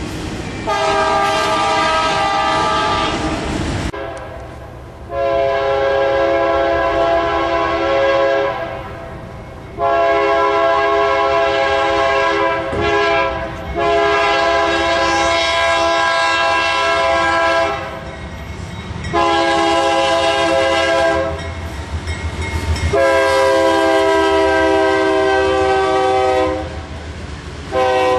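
Freight locomotive horn blowing six long blasts, each a chord of several notes, with short gaps between. Under the horn, freight cars rumble and clatter past on the rails.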